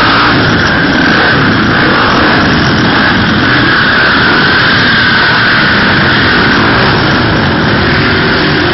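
Dirt bike and quad bike engines running close by, a loud, steady drone without revving.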